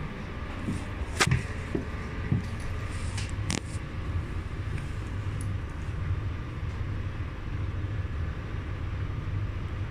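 Steady low rumble of a metro train at a station, with two sharp clicks, about a second in and about three and a half seconds in.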